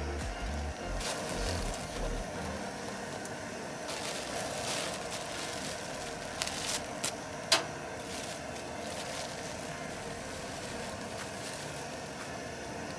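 Steady rushing noise of a cooking burner running under a pot of water for boiling bean sprouts, with a few light cookware clinks in the middle, the sharpest one about seven and a half seconds in.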